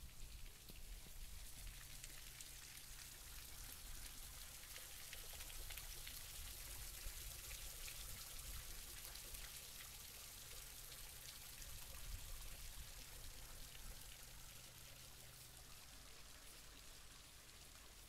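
Light rain pattering: a soft, steady hiss full of tiny drop ticks, with a faint low hum underneath.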